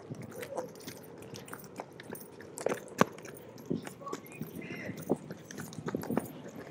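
Scattered short crunches and knocks, irregular and close to the microphone: handling noise and footsteps from a handheld camera carried while its holder moves.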